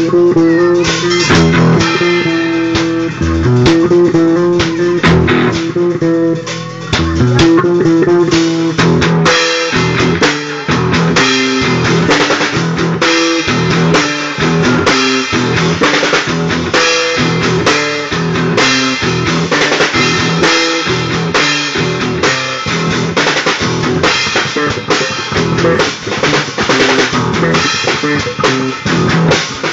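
Band music with electric guitar, bass guitar and drum kit. The guitar carries the first part fairly sparsely, and about a third of the way in the full drum kit joins with a steady beat and rimshots.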